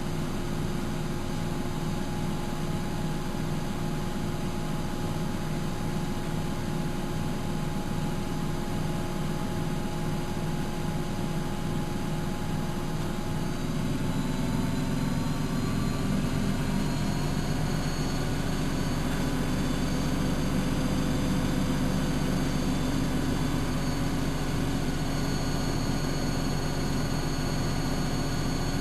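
Miele Novotronic W914 washing machine running with a steady motor hum. About halfway through the hum gets louder and its tones climb in pitch as the drum speeds up.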